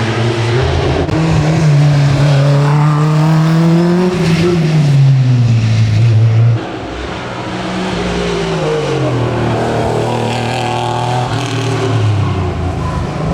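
Competition car's engine at high revs, its note rising and dropping with gear changes and throttle lifts. About six and a half seconds in the loudness falls suddenly, then the note climbs and falls again.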